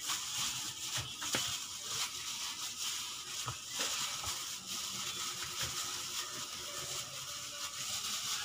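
Plastic bag worn as a glove crinkling and rustling as a hand massages raw chicken pieces with ground pepper in a plastic basin, with many small irregular clicks throughout.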